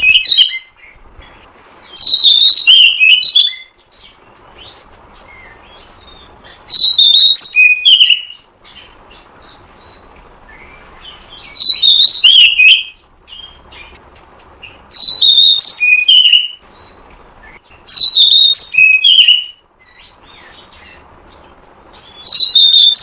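Oriental magpie-robin (kacer) song played as a lure call: loud, varied whistled phrases about a second and a half long, repeated six times with pauses of a few seconds between, and a faint hiss in the gaps.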